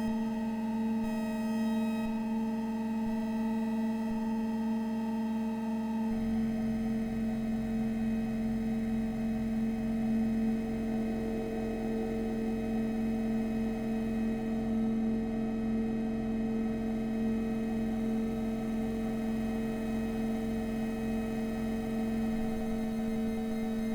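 Weird Sound Generator synthesizer droning a chord of steady electronic tones. About six seconds in, a higher tone cuts off and a low, evenly repeating pulsing throb starts under the drone.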